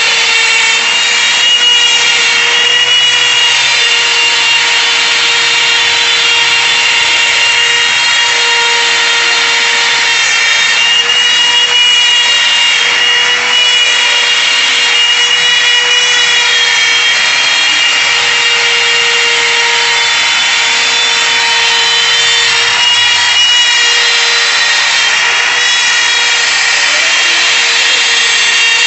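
DeWalt compact router working as a CNC spindle, running with a steady high whine while its bit routes a groove into a wood board. The pitch wavers slightly as the cut loads it.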